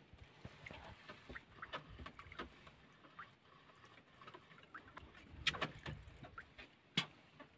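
Faint, scattered clicks and light knocks as a fishing hand line is hauled in over the side of a wooden outrigger boat, with a sharp click near the end.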